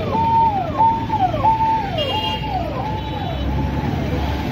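Electronic siren on a VIP convoy's beacon-topped SUV passing by, sounding a repeating wail that rises, holds briefly and glides down about one and a half times a second, loudest early and fading toward the end. Low traffic rumble underneath.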